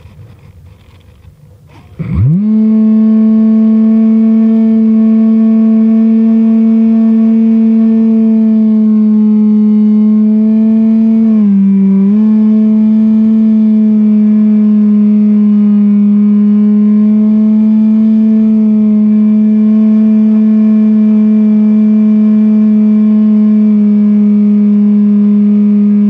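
Electric motors and propellers of a small camera drone, heard from on board. About two seconds in they spin up with a quick rising whine, then hold a loud steady hum with many overtones, dipping briefly in pitch about halfway through.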